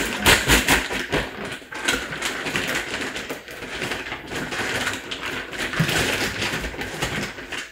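Thin plastic shopping bag crinkling and rustling as it is handled around an air fryer, a continuous crackle full of small sharp snaps.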